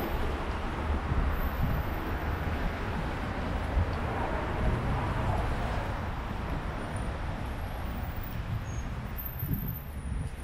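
City street ambience: a steady rumble of traffic, easing a little toward the end.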